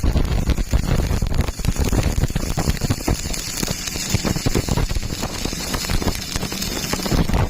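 Stick (arc) welding: the electrode arc crackling and sizzling steadily, then cutting off suddenly near the end as the arc is broken.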